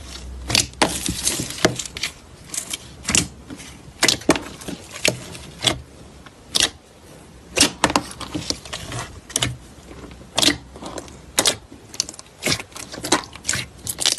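Slime being pressed and worked by hand, giving sharp, irregular popping clicks, about two or three a second.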